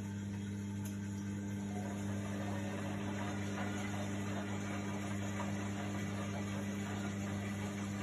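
Indesit front-loading washing machine running: a steady low hum with a rushing noise over it that thickens a little about two seconds in.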